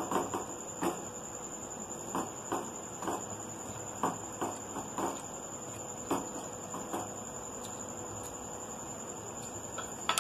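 Wooden spatula stirring cooked dal in hot jaggery syrup in a steel pan, with short knocks and scrapes against the pan over the first seven seconds, then the syrup simmering on its own.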